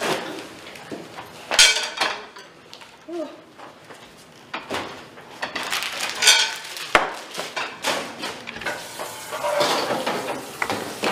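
Pots, pans and utensils clattering now and then, with a wooden spatula stirring and scraping in a frying pan on a gas hob.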